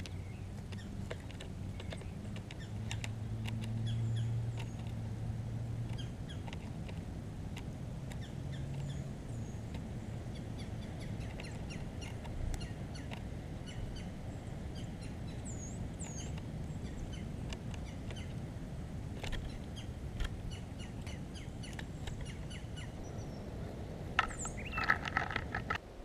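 Small wild songbirds calling in winter woods: many short high chips and quick down-slurred notes, with scattered sharp clicks. About a second before the end comes a louder burst of harsh, repeated calls. A low steady drone runs under the first several seconds.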